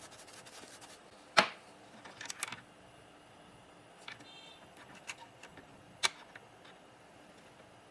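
Scattered sharp clicks and light knocks of a metal key blank being fitted and clamped in a key cutting machine's clamp, the sharpest about a second and a half in and another about six seconds in.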